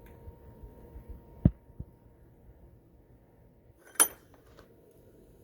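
A dull knock about a second and a half in, then a single sharp, slightly ringing click about four seconds in, with light handling noise between: hands and small tools working on a plastic automotive wiring-harness connector.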